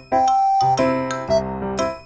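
Background music: a tune of short struck notes, with one note held for about half a second near the start.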